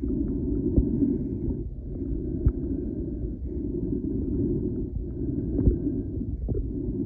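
Muffled underwater noise from a snorkeler's camera: a low rumble that swells and dips about every one and a half to two seconds, with a few sharp clicks.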